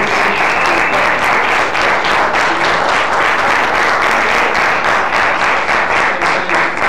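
Audience applauding steadily as a certificate is presented.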